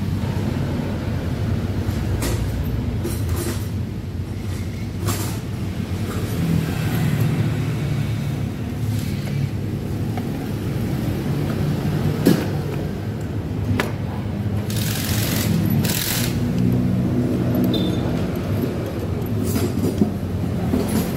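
A low, steady engine rumble from a running vehicle in the background, wavering slightly in pitch. Over it come a few sharp metal knocks and clicks, the clearest about 12 and 20 seconds in, as the aluminium final-drive gearbox cover is seated by hand. There are two short hisses around 15 seconds in.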